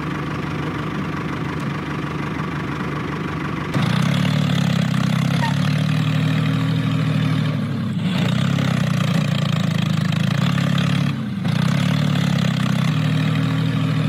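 A tractor engine running steadily, stepping up louder about four seconds in, with two short dips around eight and eleven seconds.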